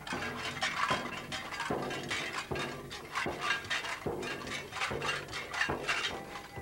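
Shaman's drum beaten in a steady rhythm, a little more than one stroke a second, with continuous metallic jingling and clinking.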